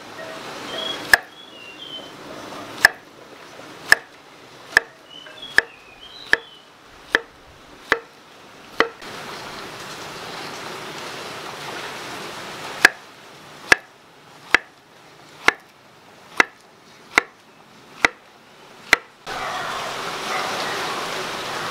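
Kitchen knife slicing pisang raja bananas on a wooden chopping board: sharp knocks of the blade striking the board, about one a second. They come in two runs of about eight cuts, with a pause of a few seconds between.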